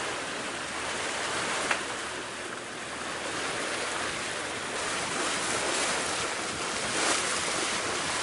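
Steady rush of water along the hull of a sailboat under engine, with wind on the microphone.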